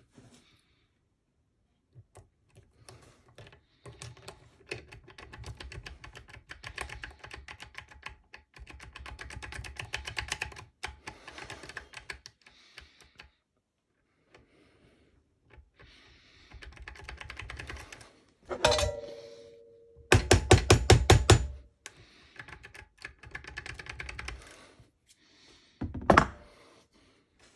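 Lock pick scraping and clicking against the pins in the keyway of a drilled Ultion 3-star euro cylinder, in bursts of rapid small metal clicks, while the picker tries to push a stuck pin up. About two-thirds through comes a short ringing metallic ping, then a burst of faster, louder clicking, and there is a single knock near the end.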